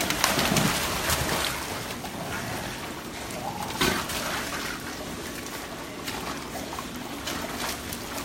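Water sloshing and splashing as dogs swim in a pool, with louder splashes in the first second and again about four seconds in.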